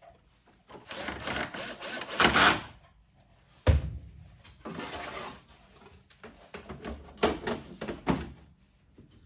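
Handling noises: three stretches of rubbing and scraping with one sharp click or knock partway through.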